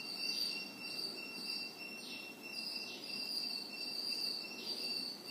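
Steady, high-pitched insect chorus with a pulsing shimmer, over faint background hiss.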